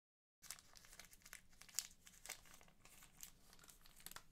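Faint handling noise from a metal flask held by its cap: irregular rustling and small clicks, starting about half a second in after silence.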